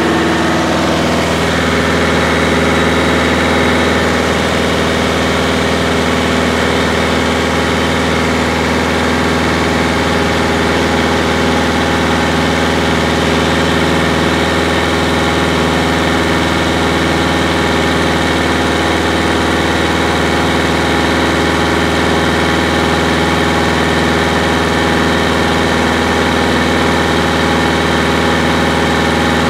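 Light single-engine airplane's piston engine and propeller droning steadily in flight, heard from inside the cabin, with a slight shift in pitch about a second in.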